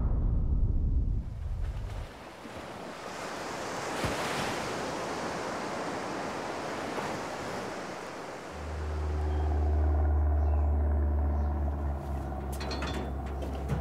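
Waves washing onto a sandy beach, a steady hiss of surf. About two-thirds of the way through, a loud, low, steady drone comes in over it, and a few light clicks sound near the end.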